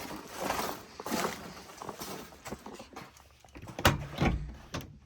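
Footsteps and a series of knocks and clunks as someone climbs into a skid steer's cab, with the loudest clunks about four seconds in, before the engine is started.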